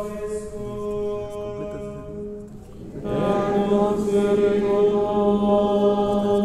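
Latin plainchant sung by men's voices on long held notes. A softer single line gives way about three seconds in to a louder, fuller chant.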